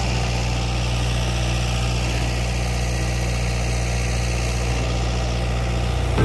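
Longtail boat's engine running at a steady idle, an even low hum.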